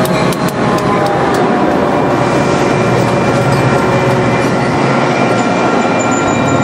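A Metra F40PH-3 diesel locomotive passing close by, followed by its bilevel passenger coaches rolling past on steel wheels, with a few sharp wheel clicks at the start. A high brake squeal joins about five and a half seconds in as the train slows.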